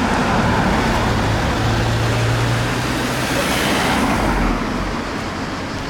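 A motor vehicle running close by amid road traffic noise, with a steady low hum for the first three seconds and a swell of noise a little past the middle.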